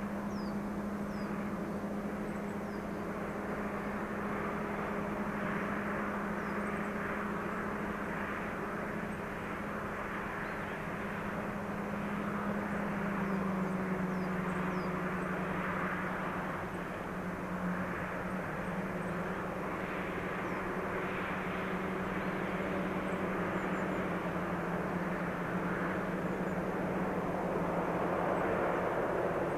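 Two double-headed DD51 diesel-hydraulic locomotives hauling a long train up the grade, heard from far off: their diesel engines give a steady drone that drops slightly in pitch about halfway through.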